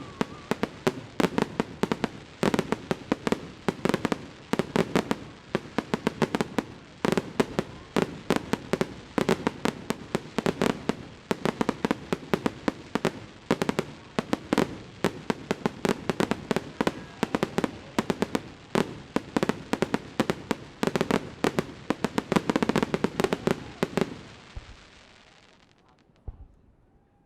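Fireworks display: a dense, rapid barrage of bangs and crackles, several a second, that stops about 24 seconds in and dies away, with one lone bang shortly after.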